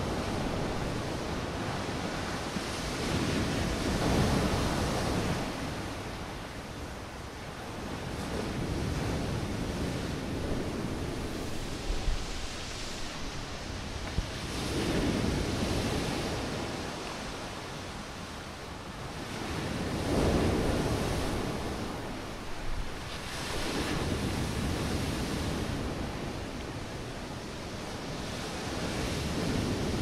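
Stormy sea waves breaking and washing in, a steady rush of surf that swells and fades in slow surges a few seconds apart, with wind blowing over it.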